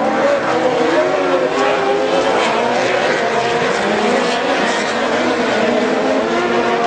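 Several 2-litre autocross buggies racing, their engines revving up and down at different pitches over one another.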